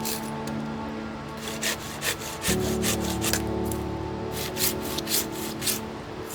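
Wood being sawn by hand, a rasping stroke about two or three times a second, over background music with held chords that shift about two and a half seconds in.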